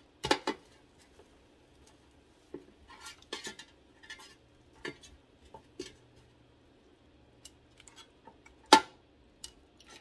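Metal kitchen utensils clinking and clattering against dishes in a series of short, scattered knocks, the loudest a sharp clank near the end.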